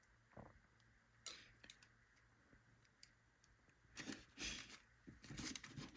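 Faint, small metallic clicks and scrapes of a tool working at the C-clip on a euro lock cylinder. There is a single click about a second in and a busier run of scraping clicks in the last two seconds.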